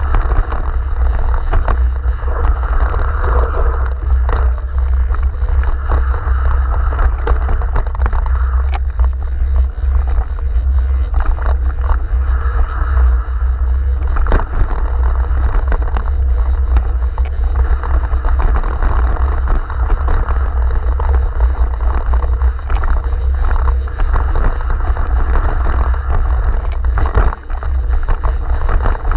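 Mountain bike riding fast down a dirt singletrack: wind buffets the microphone in a steady low rumble over tyre noise on dirt, with frequent short clatters and knocks as the bike rattles over the rough trail.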